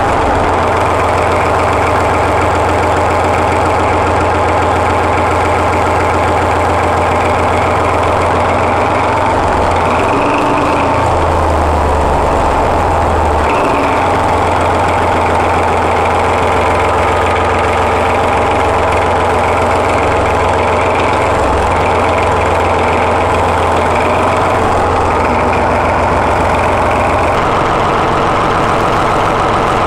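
Paxman 6YJXL V6 diesel engine of a Class 14 diesel-hydraulic locomotive idling steadily, a newly installed replacement power unit on its first run after overhaul. Its low note shifts briefly about ten seconds in.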